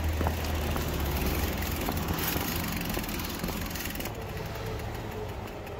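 Diesel engine of an arriving bus running at idle, a low rumble that is strongest in the first couple of seconds and then slowly fades.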